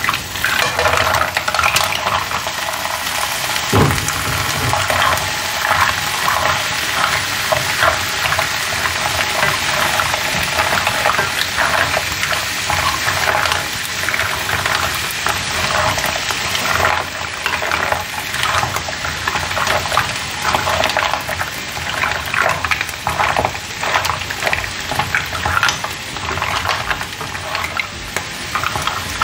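Green mussels sizzling in a hot pan of garlic as they are poured in and stirred with a silicone spatula: a steady sizzle full of the shells clicking and clattering against each other and the pan, with a dull knock about four seconds in.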